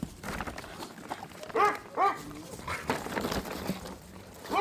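Dog barking: two short barks in quick succession about a second and a half in, a softer one just after, and another bark right at the end.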